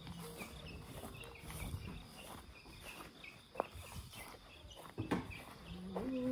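Footsteps through grass, with faint high chirps of small birds or insects repeating in the background.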